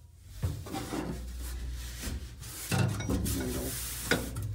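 Metal knocks and scraping as the B-25's emergency flap hand crank is fitted into its floor socket under a lifted metal cover plate. Sharp knocks come about half a second in, near the middle and near the end.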